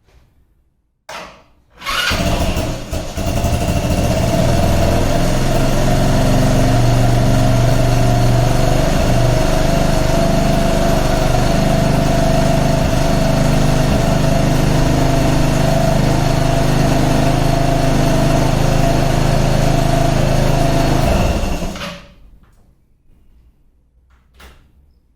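Scomadi TL125 scooter's 125cc engine starting about two seconds in, after a brief first burst. It idles steadily for about twenty seconds with a freshly fitted air filter, then is switched off and stops.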